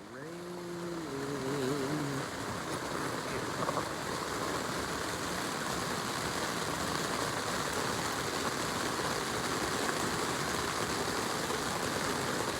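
Heavy rain pouring steadily onto a tent, an even hiss of drops heard from inside. A short wavering tone sounds over it in the first two seconds.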